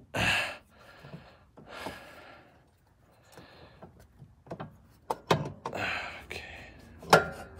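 A man's heavy breaths as he strains under a car fitting a starter motor, with a couple of sharp knocks in the second half. The last knock, near the end, is the loudest.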